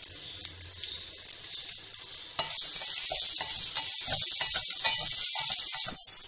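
Freshly added sliced onions sizzling in hot oil in a metal pot, stirred with a wooden spoon that scrapes and clicks against the pot. The sizzle gets louder about two and a half seconds in.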